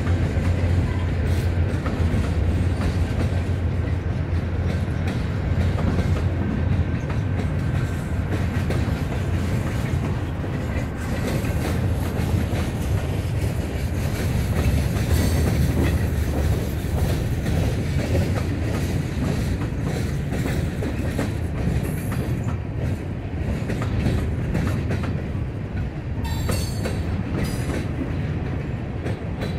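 Norfolk Southern freight train rolling past: the cars' wheels clicking steadily over the rails above a continuous low rumble.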